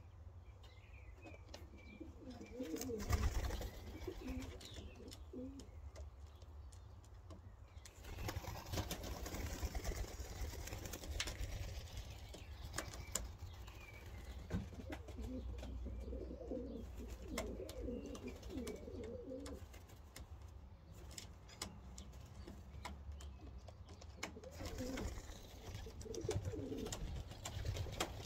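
Young racing pigeons cooing in several bursts.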